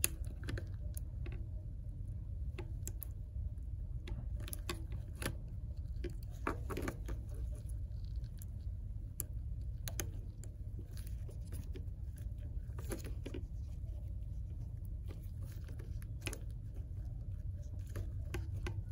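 Scattered small clicks and taps as gloved fingers press the screen's flex-cable connectors onto the iPhone X logic board, over a steady low hum.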